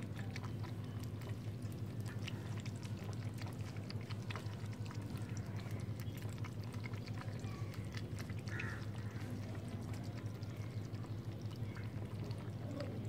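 Kittens lapping milk from a steel plate: a continuous run of small, quick wet clicks, over a steady low hum.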